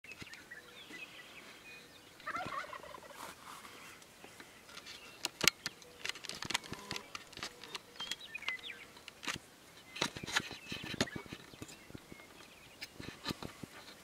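Wild turkey gobbling once, a rapid rattling call that drops in pitch, about two seconds in. Sharp clicks and taps come and go through the rest, the loudest about five and a half seconds in.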